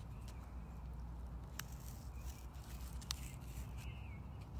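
Scissor tip being pressed and twisted through a small cardboard disc: faint scraping with two sharp clicks, over a low steady background rumble.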